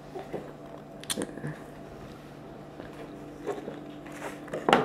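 A piece of chocolate bar being bitten and chewed: a few short, soft crackling clicks about a second in and again near the end, over a low steady hum.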